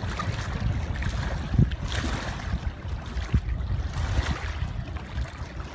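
Wind buffeting the microphone in irregular gusts, over the wash of small wind-driven waves on a lake.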